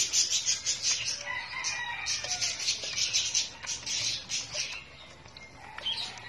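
Puppies crunching dry kibble from a stainless steel bowl, a quick run of crunches several times a second that eases off about five seconds in. A few short high calls sound faintly underneath.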